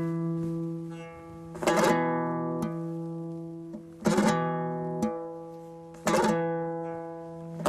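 A dombra, the two-stringed Kazakh lute, playing a kuy: four strong strummed chords about two seconds apart, each left to ring and fade, before fast strumming picks up again at the very end.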